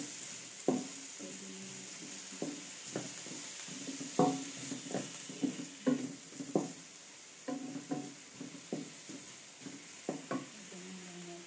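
Wooden spatula knocking and scraping against a nonstick wok as chopped vegetables are stir-fried, each irregular knock ringing briefly in the pan, over a steady sizzle.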